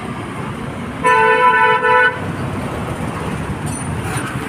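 A vehicle horn sounds once, a steady blast of about a second, over continuous street traffic noise.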